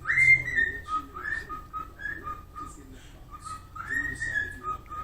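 Cockatiel whistling its song: a string of short whistled notes, several sliding upward, hopping between a lower and a higher pitch.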